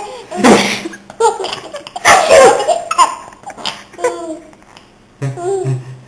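An adult fakes two loud sneezes, and a baby answers each with bursts of giggling laughter.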